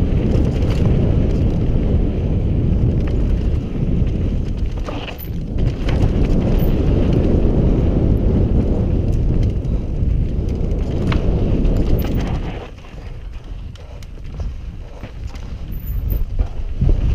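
Mountain bike descending fast on dry, sandy, rutted dirt: wind buffeting the camera's microphone and tyres rumbling over the trail, with scattered clicks and rattles from the bike. The rush eases for a couple of seconds about thirteen seconds in, then builds again.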